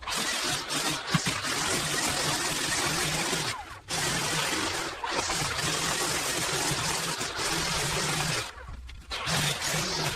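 Pressure washer spraying: a steady hiss of the water jet over the hum of the pump. It cuts off briefly twice as the trigger is let go.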